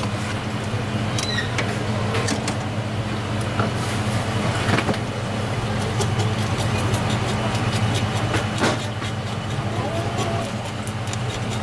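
Knife scraping the scales off a red coral grouper on a plastic cutting board: quick rasping strokes that come thicker in the last few seconds, over a steady low machine hum.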